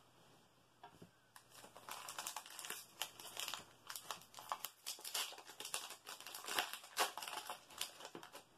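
Foil wrapper of a Pokémon booster pack crinkling as it is handled, a quiet, dense run of small crackles starting about a second and a half in.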